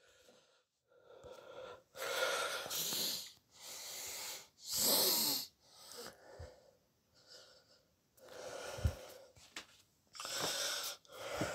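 A man breathing heavily close to the microphone: about six noisy breaths, each under a second long, with short gaps between them. A short low thump comes about three-quarters of the way through.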